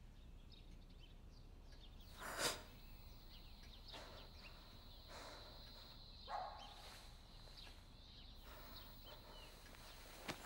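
Faint, eerie film sound-design ambience: a thin, steady high-pitched tone that comes in about two seconds in, with a few short, soft breathy swells.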